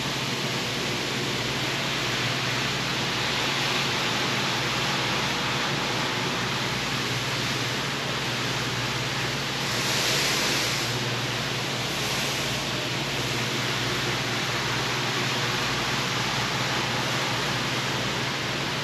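Rug-washing equipment running: a steady rushing hiss over a constant low motor hum, swelling briefly about ten seconds in.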